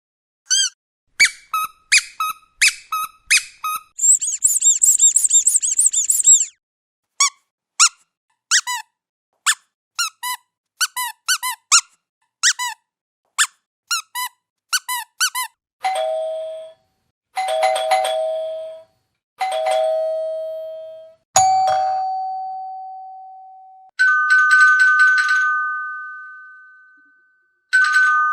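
A string of sound effects. First come repeated short squeaks that rise and fall in pitch, with a fast, high trill a few seconds in. Then a doorbell sounds its two-note ding-dong three times, followed by a single chime with a knock. Near the end a two-tone ring pulses fast, like an electronic phone ringer.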